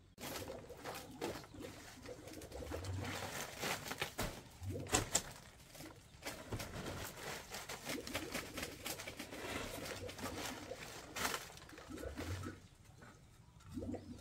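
Birds calling with soft, low coos a few times, over steady rustling and irregular clicking.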